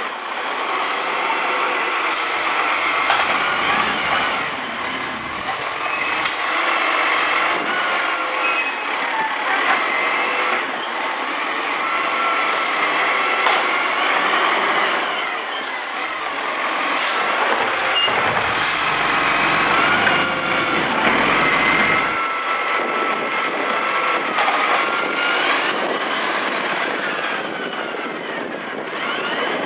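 Side-loader garbage truck working at the kerb: engine and hydraulics running with a whine that shifts in pitch as the lifting arm works, broken by repeated short hisses of the air brakes.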